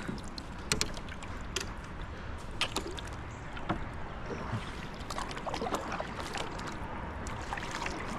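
Kayak paddle strokes dipping and splashing in river water, with scattered light clicks and knocks.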